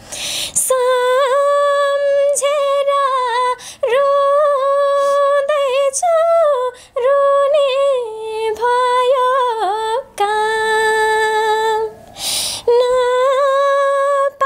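A young woman singing a Nepali song unaccompanied, in long held high notes with turns and wavers in pitch, pausing briefly for breath between phrases.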